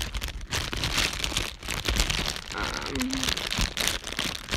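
Plastic squishy packaging crinkling and crackling irregularly as it is handled.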